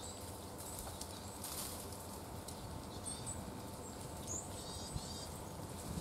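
Small songbirds giving short, high chirps, a few scattered calls and a quick run of notes near the end, over a steady low background rumble, with a brief rustle about a second and a half in.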